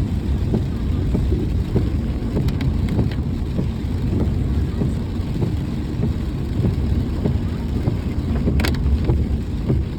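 A vehicle's steady low rumble while driving in the rain, with scattered taps of raindrops and one short sharp click or splash about nine seconds in.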